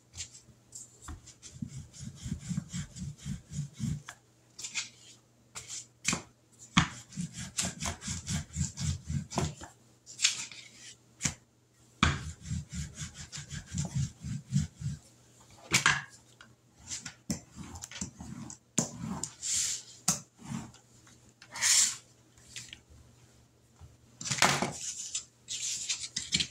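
Rolling pin rolled back and forth over dumpling dough on a plastic cutting mat, in three spells of quick, rhythmic low rumbling, with sharp taps and short scrapes of hands and dough in between.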